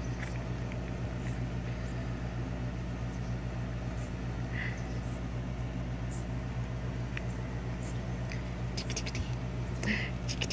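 A Brussels Griffon puppy scuffling on soft bedding as a hand plays with it, with faint rustling and scratching over a steady low hum. Two short high squeaks come about four and a half seconds in and near the end.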